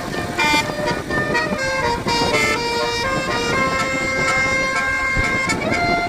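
Basuri telolet horn on a bus playing a tune: a run of short held notes in changing pitches, with a longer held note through the middle, over the bus's engine noise.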